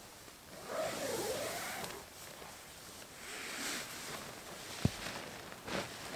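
Nylon tent fabric rustling and a zipper being pulled as a person crawls into a small ultralight backpacking tent, in two swishing spells. A single sharp knock comes about five seconds in.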